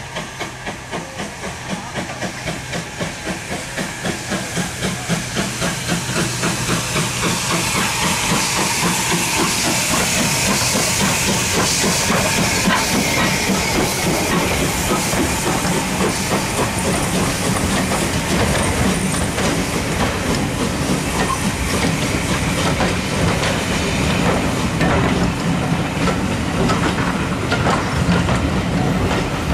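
Steam locomotive working a passenger train past, its exhaust beats growing louder and quicker over the first several seconds, then a steady loud hiss of steam. The coaches follow with their wheels clattering over the rail joints.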